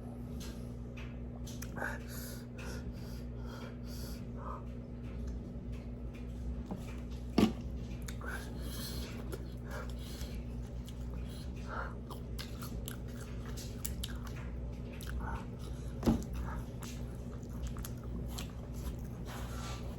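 Close-miked chewing and mouth noises from someone eating spicy fried chicken, small clicks and smacks over a steady low hum, with two sharper, louder sounds about nine seconds apart.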